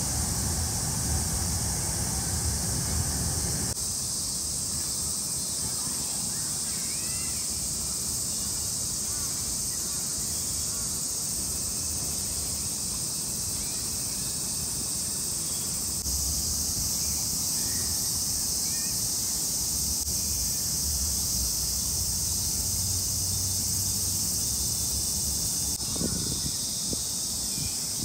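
Cicadas droning in a steady chorus, with a few faint bird chirps and a low rumble underneath at times.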